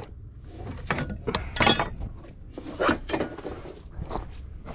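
Hands handling car parts in an engine bay: several short clicks, clatters and scrapes of plastic and metal, over a steady low rumble.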